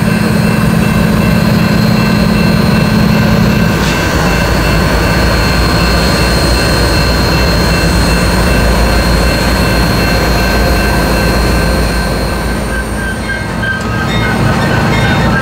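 Union Pacific diesel-electric locomotive running close by: a steady low engine rumble with a thin steady high whine over it. The engine note drops a little about four seconds in.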